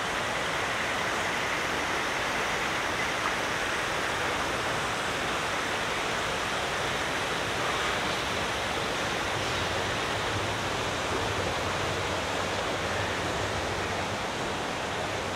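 Steady rushing of a waterfall, an unbroken wash of falling water.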